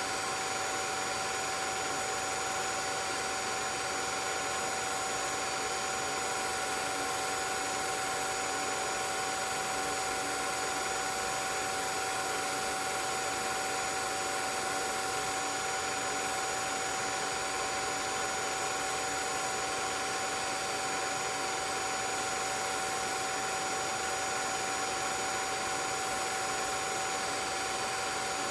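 16mm film projector running: a steady mechanical whir with several constant whining tones, unchanging throughout.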